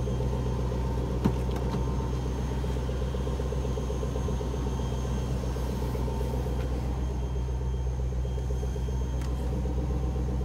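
Range Rover Sport engine idling steadily, a low, even rumble. A single light click comes about a second in.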